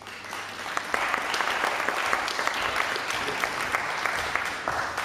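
Audience applauding: many hands clapping, starting at once and swelling to full strength within about a second, then holding steady.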